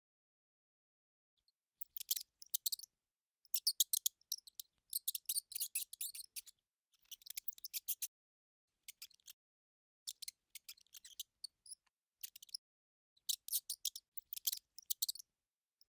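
Mouse sound effect: bursts of rapid, high-pitched clicking and scratching in short clusters with silent gaps between them. The sound starts about two seconds in.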